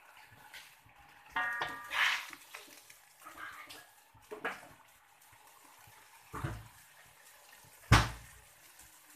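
Hot water with sliced onion and carrot in a wok, bubbling faintly as it heats toward the boil. A few scattered clinks and knocks sound over it, with the loudest thump near the end.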